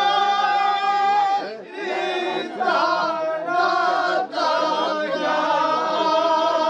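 Singing in long held notes, broken by two short pauses, in the manner of a chant.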